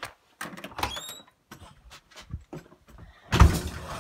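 A door squeaking briefly about a second in and shut with a heavy thud near the end, with footsteps and knocks in between.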